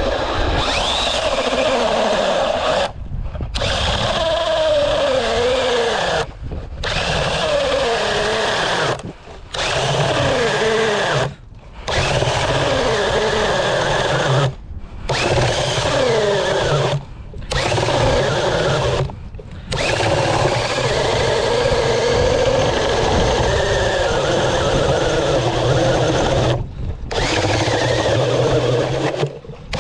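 Cordless DeWalt drill turning a K-Drill ice auger as it bores into ice. The motor runs in long spells, stopping and restarting abruptly about nine times, and its pitch falls several times along the way.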